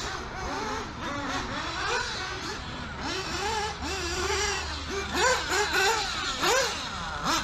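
Small nitro RC car engine being driven hard, its high-pitched whine repeatedly revving up and dropping back as the throttle is opened and closed, several rises and falls a second.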